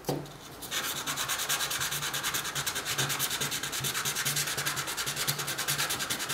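A small Stirling-engine power piston is rubbed by hand in quick, even strokes on fine 400–600 grit sandpaper, making a steady rhythmic rasp that starts under a second in. The piston is being sanded down to ease its too-tight fit in a glass test-tube cylinder.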